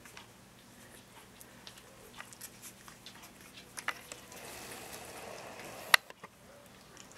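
Faint scattered small clicks and rustles of young puppies shuffling about on fleece bedding. A short stretch of rustling comes about four seconds in and ends in one sharp click.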